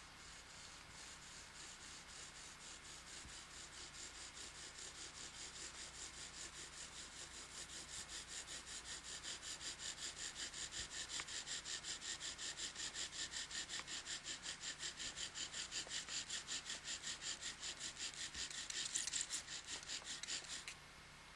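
Bow drill: the wooden spindle rasping in the hearth board under rapid, even back-and-forth bow strokes, several a second. The strokes grow steadily louder, then stop abruptly near the end.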